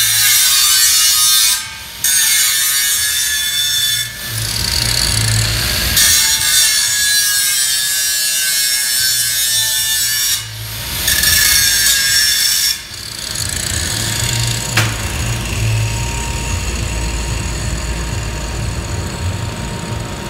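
Handheld angle grinder grinding a steel beam during surface preparation: a harsh, high, loud grinding hiss in several passes, broken briefly about 2, 4 and 11 seconds in. It stops about 13 seconds in, leaving a lower steady hum and a single click.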